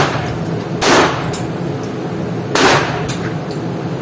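Pistol shots: two loud cracks about a second and a half apart, each with a short ringing tail, with fainter single shots in between, over a steady low hum.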